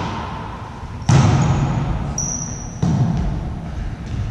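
Volleyball being struck by hands during a rally: two sharp thuds about one and a half seconds apart, each trailing off in the hall's echo. A brief high squeak comes between them.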